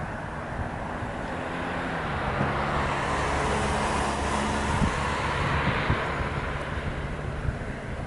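A motor vehicle passing close by: engine and tyre noise swells to a peak about halfway through, then fades.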